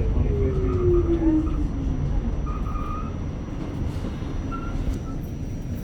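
Electric passenger train running, with a steady low rumble and a motor whine that falls in pitch over the first two seconds as the train slows.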